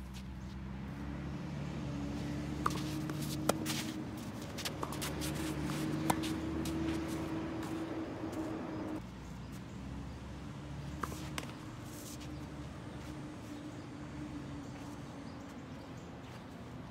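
A motor engine running steadily with a low hum, louder through the first half and dropping off suddenly about nine seconds in. A few sharp knocks of a tennis ball come through over it.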